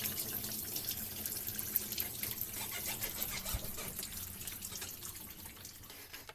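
Engine coolant trickling and spattering out of a 1UZ V8 as the water pump comes off, a steady flow of fine drips and splashes that eases slightly toward the end.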